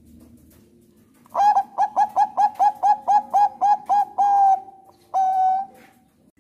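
A Thai zebra dove (perkutut bangkok) singing. It gives a quick run of about a dozen short, clipped coos, about four a second, that ends in a longer held coo, then one more drawn-out coo about half a second later.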